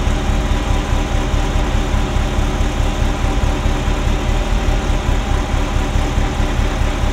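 Ferrari Mondial V8 idling roughly with an uneven thrumming. It is misfiring on cylinders 5 to 8 from a timing fault, which the owner suspects is a sensor.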